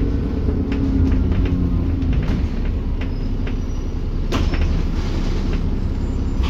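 Double-decker bus running along the road, heard from the upper deck: a steady low engine and road rumble with many short rattles and clicks from the body and fittings. The engine note drops over the first couple of seconds, and a sharper knock comes about four seconds in.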